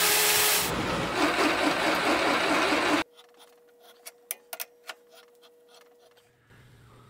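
A bandsaw cuts through a 25 lb cast-iron hex dumbbell, a steady grinding hiss that changes texture about a second in and stops abruptly about three seconds in. Then it is near quiet, with a few faint clicks as a 1-inch NPT tap is turned by hand with a wrench.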